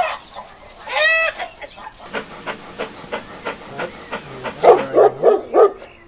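Chickens clucking, with one drawn-out hen call about a second in, then a dog barking loudly in quick succession near the end.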